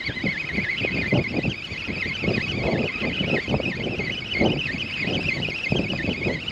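Fishing reel being wound in quickly on an empty line, its gears giving a high, warbling whine that wavers with the cranking.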